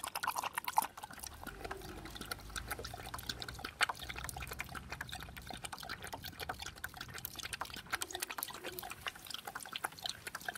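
Dog lapping water with its tongue: a rapid, unbroken run of short clicks.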